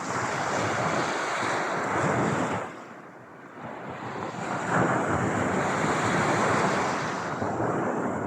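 Ocean waves washing onto a shore in two long swells, the rush of water rising, falling back, then rising again about halfway through.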